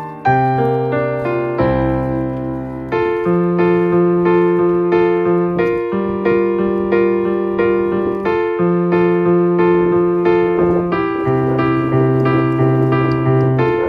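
Background music: a piano playing a slow, gentle melody over held bass notes.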